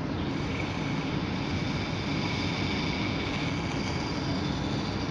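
Steady low background rumble, with a faint high fizzing hiss that comes in about a third of a second in: a piece of sodium reacting with water and giving off hydrogen.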